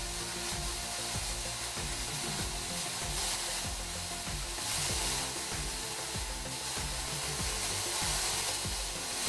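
Electric drill running steadily, spinning a disc-shaped roller blank while a hand-held tool is pressed against it, giving a continuous rasping, scraping noise as the blank is trued round.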